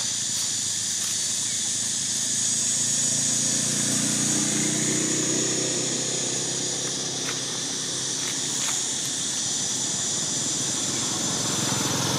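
Outdoor ambience with a steady high hiss. A motor vehicle's engine hum swells about two seconds in and fades again a few seconds later.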